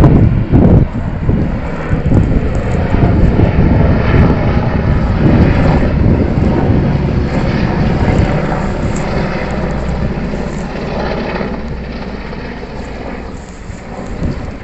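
AW101 three-engine military helicopter flying past with its rotor and turbine sound. It is loudest at first and fades steadily as it moves away.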